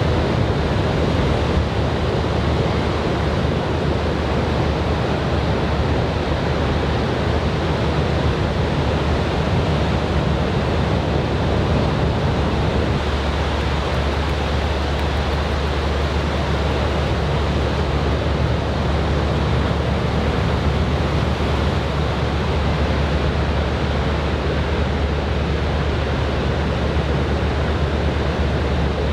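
Steady wash of ocean surf breaking on the beach in a typhoon swell, with wind on the microphone adding a low rumble.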